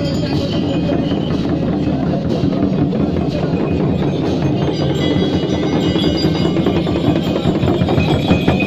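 Several large rope-laced hand drums (dhol) beaten in a continuous quick rhythm, with ringing metal above it. The beating gets denser and louder from about halfway through.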